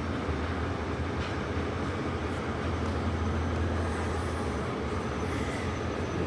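Steady low drone and hum inside a passenger carriage of a diesel-hauled train.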